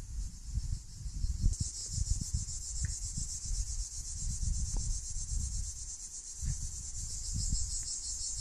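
Steady high-pitched insect chorus, growing louder about a second and a half in, over an irregular low rumble on the microphone.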